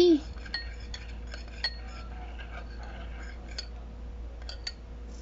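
Metal spoon stirring a balsamic, olive oil and honey vinaigrette in a small glass bowl, clinking lightly against the glass every second or so.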